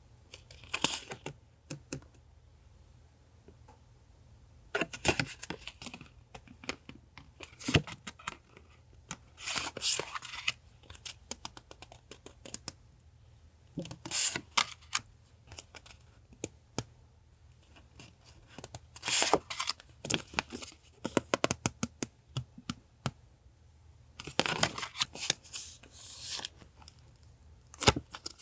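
Paper being cut and handled for a collage: scissor snips, tearing and crinkly rustling of paper in short bursts, with small clicks and quiet pauses between them.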